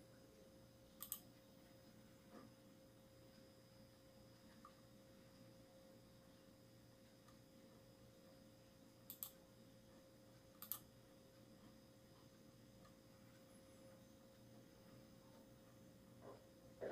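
Near silence over a faint steady electrical whine, broken by three sharp double clicks, one about a second in and two between nine and eleven seconds: a computer mouse being clicked while navigating a settings page.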